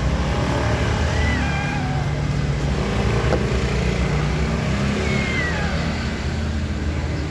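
A steady low engine rumble of motor traffic. Over it, a cat gives two faint meows, one about a second in and a falling one around five seconds.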